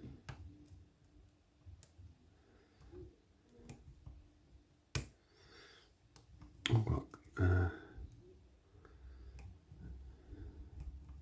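Lock pick and tension wrench working in a small brass padlock: scattered small clicks and scrapes, a sharper click about five seconds in, and two louder clattering knocks a couple of seconds later.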